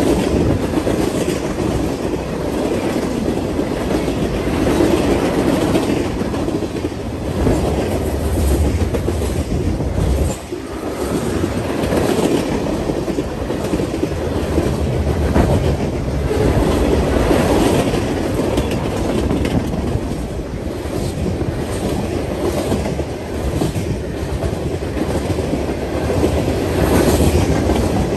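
Freight train cars rolling past close by: a steady rumble of steel wheels on rail with a repeating clickety-clack as wheel sets cross rail joints, dipping briefly about ten seconds in.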